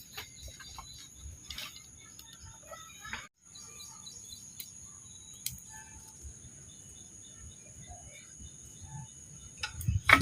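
Faint outdoor ambience: small birds chirping, with a steady high-pitched whine and scattered light clicks. The audio cuts out completely for a moment about a third of the way in.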